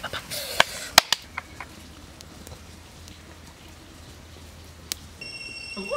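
Wood campfire crackling, with a handful of sharp pops in the first second and a half and one more about five seconds in.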